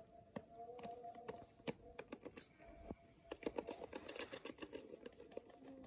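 Komodo dragon feeding among stones: a faint run of irregular sharp clicks and taps that quickens into a dense patter about three and a half seconds in, then thins out.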